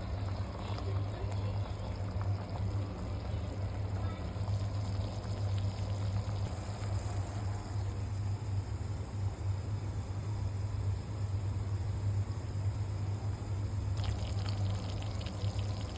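Steady sound of running or pouring water over a constant low hum.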